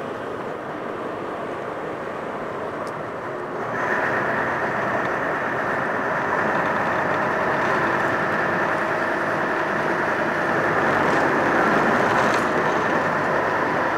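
A boat's engine running steadily, with a continuous hum that gets louder about four seconds in.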